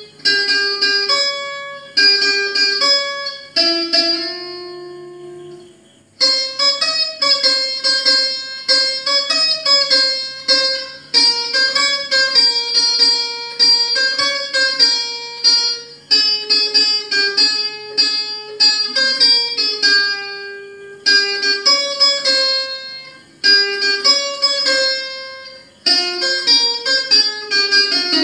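Acoustic guitar picked note by note, playing a melody in phrases, each note ringing and fading, with short pauses between phrases.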